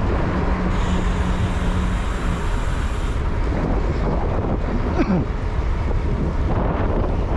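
Wind rushing over the microphone of a moving motorcycle, with engine and road noise underneath. A steady low hum runs for about the first two seconds, and a short falling tone comes about five seconds in.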